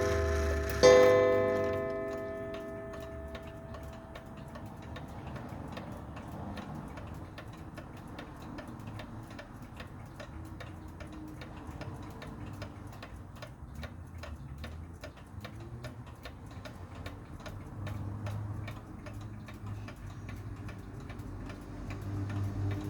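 Ingraham clock movement striking one last time about a second in, the note ringing out over a couple of seconds, then ticking steadily after its overhaul.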